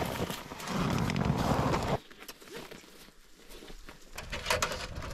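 A steady rush of air at a freshly lit kindling fire in a small metal camp stove box, lasting about a second and a half and cutting off abruptly. After that it is much quieter, with a few light clicks near the end.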